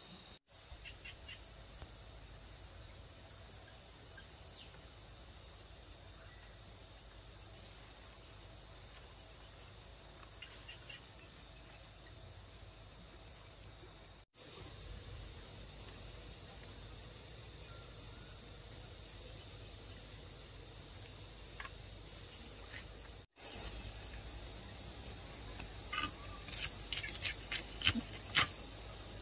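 A steady, high-pitched insect chorus trilling without a break over a low rumble, dropping out for an instant twice. A handful of light clicks or taps come near the end.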